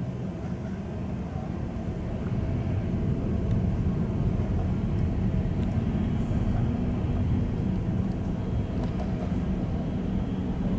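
Steady low rumble of a large vehicle or aircraft, growing louder about two seconds in and then holding.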